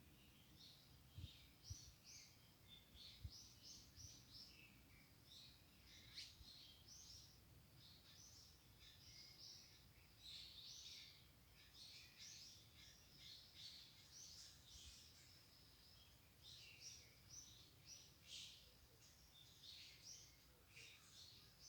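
Faint bird chirping: many short, high calls in quick succession, with a few soft low knocks in the first few seconds.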